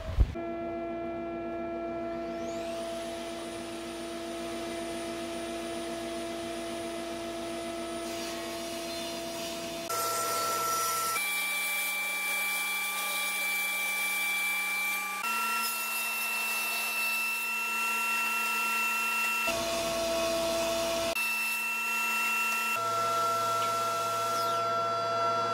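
Table saw ripping beech boards into planks: a steady motor whine that rises in pitch about two seconds in as the blade comes up to speed, then holds, shifting abruptly in pitch several times.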